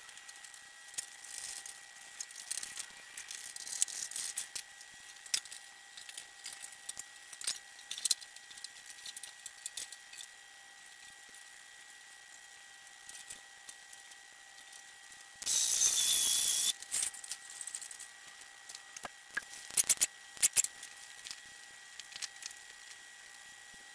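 Scattered clicks and clanks of hand tools working on a garden tractor, over a faint steady whine, with one loud hiss lasting about a second some two-thirds of the way through.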